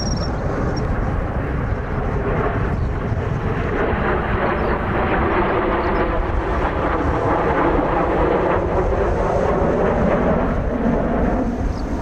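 Jet engine noise from a formation of four Kawasaki T-4 jets flying overhead: a steady rushing sound that builds through the middle and eases slightly near the end. Low wind rumble on the microphone underneath.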